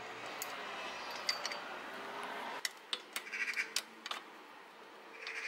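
Small metal clicks and clinks of a spanner and bicycle brake hardware being handled, several sharp ticks close together a little after halfway.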